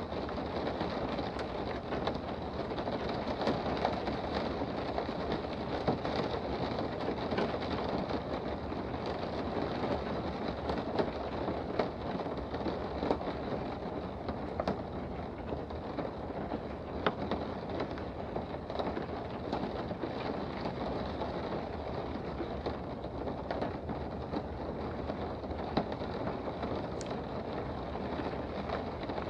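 Steady rain heard from indoors: an even hiss with frequent sharp ticks of single drops striking.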